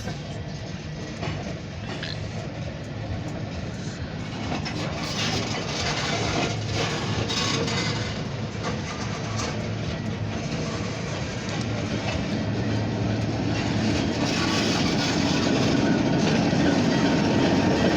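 Short freight train of grain hopper cars and its locomotive rolling on the track, growing steadily louder as it approaches.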